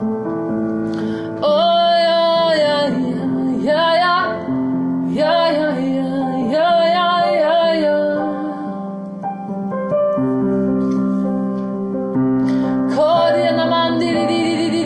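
Piano playing slow, held chords while a high voice sings long drawn-out wordless notes with vibrato, in phrases of a second or two with short gaps between. The voice drops out for a few seconds past the middle, leaving the piano, then swells back in near the end.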